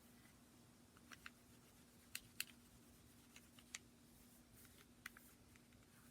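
Faint, scattered light clicks and taps from handling a Glock 17 pistol, about a dozen in all, loudest two close together about two seconds in, over a quiet steady hum.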